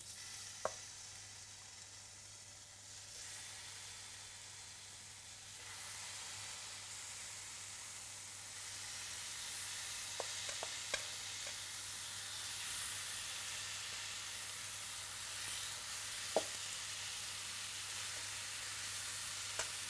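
Marinated fish pieces sizzling in oil in a hot stone-coated frying pan, the sizzle growing stronger in steps as more pieces go in. A few light clicks of a metal spoon against the pan.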